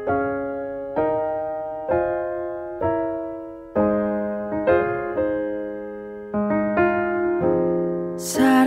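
Soft background music: an electric piano playing slow chords, one struck about every second and left to fade. A singing voice comes in near the end.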